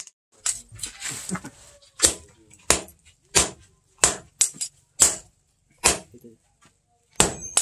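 Hand hammer striking a red-hot steel knife blank on a steel anvil: about seven sharp metallic blows at a steady pace of roughly one and a half a second, starting about two seconds in.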